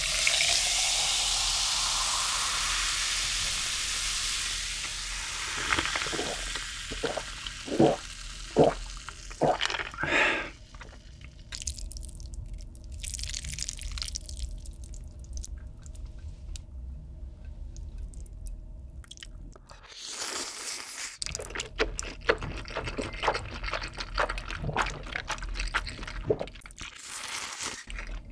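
Coca-Cola poured from a plastic bottle over ice into a glass jar: a loud fizzing pour for the first few seconds, rising in pitch as the jar fills. A few short separate sounds follow, then from about twenty seconds in, close-miked slurping and chewing of black bean ramyeon noodles.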